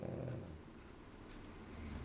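French bulldog snoring: a snore in the first half second, then quieter breathing that builds again near the end.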